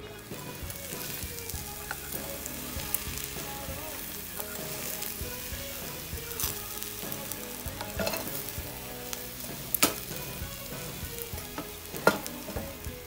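Egg omelette with bacon and spinach sizzling steadily in a frying pan while a spatula works it, with small scraping clicks and two sharper knocks of the spatula against the pan in the second half.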